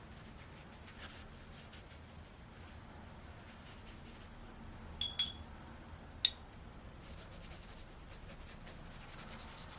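Faint, quick scratchy strokes of art tools on sketchbook paper, with two sharp ringing clinks about five and six seconds in, the loudest sounds.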